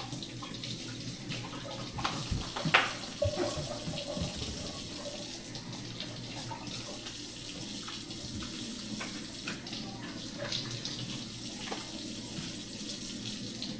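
Kitchen tap running steadily while cucumbers are rinsed under it, with a few knocks of handling about two to three seconds in.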